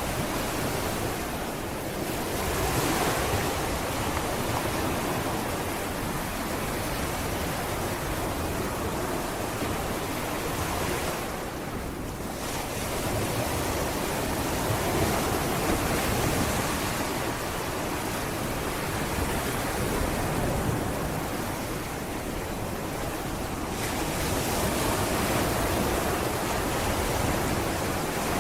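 Sea waves breaking on a beach and washing up the shore, a continuous surf that swells and eases every several seconds.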